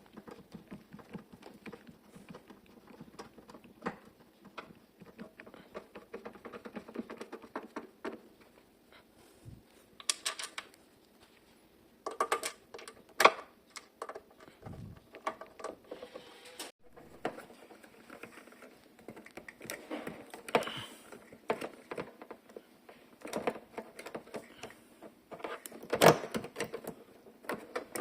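Hands working on the TV's internals: scattered clicks, taps and rattles of plastic and metal parts being handled and connectors being plugged in, with a couple of sharper knocks about halfway through and near the end.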